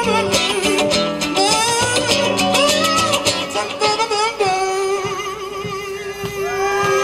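Guitar-led music with singing. About four and a half seconds in, it settles onto one long held note.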